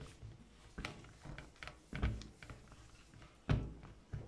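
A few light knocks and taps from fingers handling a silicone queen-cell mould on a plastic lid, the loudest about three and a half seconds in.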